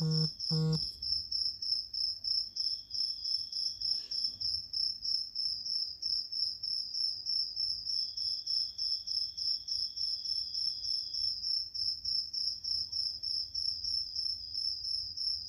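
A digital multimeter's continuity buzzer beeps three times as the probes touch points on a phone circuit board: first about two seconds in, then a longer beep of about three seconds, then a shorter one near the end. Each beep marks continuity to ground at the probed point. Over all of it runs a louder high-pitched chirping that pulses about five times a second.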